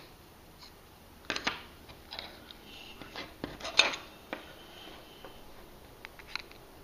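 Bare printed circuit boards handled in the fingers, clicking and scraping against each other and the wooden table: a handful of light clacks, the loudest a little under four seconds in.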